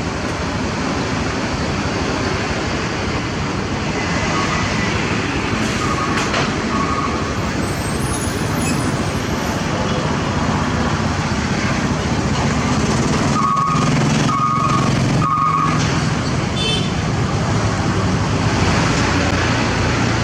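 Truck engine running amid steady road traffic noise, with a few short high beeps, three in quick succession about two-thirds of the way through.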